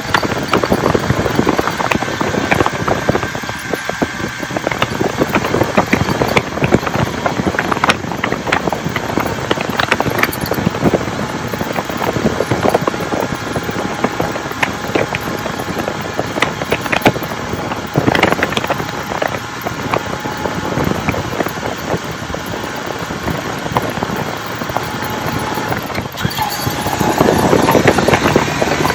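Honda CB450T Hawk's air-cooled parallel-twin engine running under way as the motorcycle is ridden, growing louder near the end.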